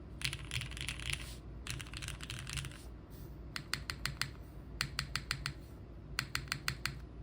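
Krush65 mechanical keyboard with Cherry MX Hyperglide Black linear switches in an O-ring-mounted aluminium plate, under JTK Classic keycaps, being typed on. Two quick runs of fast typing are followed by three groups of about six separate, evenly spaced keystrokes.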